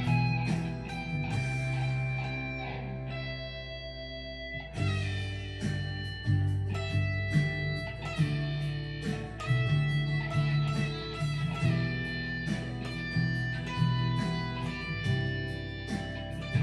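Fender JA-90 Telecaster Thinline with P-90 pickups played through an amp, picking single-note lead lines over a backing track in A major. The playing eases into a held note about three seconds in, then busier picked runs start again just under five seconds in.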